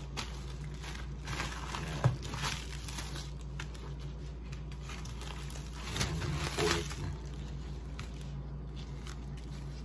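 Fresh banana leaves rustling and crinkling as they are handled, in two bouts, with one sharp click about two seconds in, over a steady low hum.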